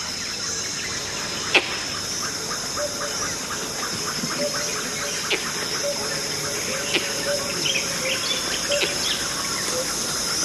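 Rainforest ambience: a steady high insect hiss with scattered bird chirps and rapid ticking calls. A few sharp clicks stand out, the loudest about a second and a half in.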